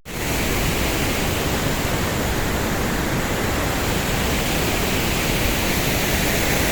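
Waterfall rushing close by: a steady, even noise of falling water.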